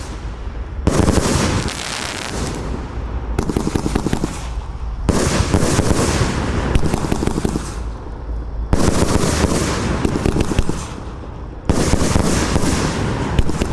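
A 25–30 mm compound firework cake firing fast volleys of shots and bursting effects. They come in dense surges a second or three long, separated by brief lulls.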